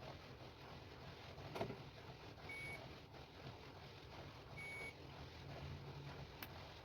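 Two short, high electronic beeps about two seconds apart over a low hum, with a sharp knock shortly before the first beep and faint clicks near the end.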